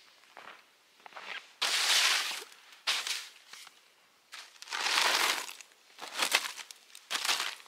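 Irregular rustling and crunching noises in several bursts, the longest about a second, like material being handled or crumpled.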